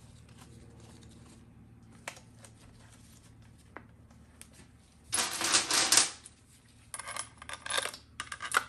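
Loose steel valve-body bolts clinking and rattling as they are handled and set into a GM TH350 transmission valve body. There are a few light clicks at first, then two bursts of metallic clatter about a second each, starting a little past halfway.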